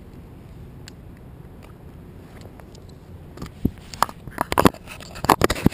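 Low, steady rumble into a crashed drone's camera microphone, then from about three and a half seconds in a rapid string of crunching, scraping knocks as the camera is handled and covered.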